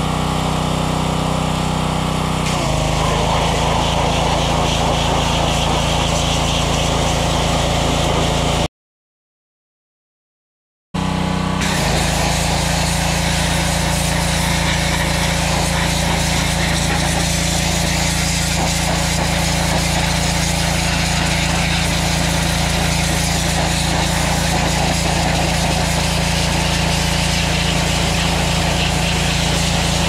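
Small gas engine of a Troy-Bilt pressure washer, a Honda motor, running steadily under the hiss of the high-pressure water spray. The sound cuts out completely for about two seconds near the middle, then resumes unchanged.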